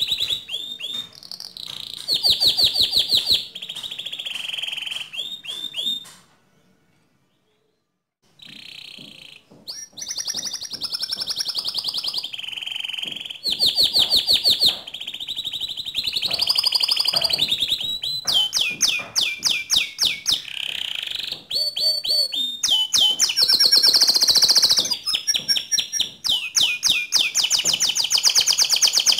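Domestic canary singing a long, varied song of rapid trills and rolling phrases, stopping for about two seconds around six seconds in and then carrying on.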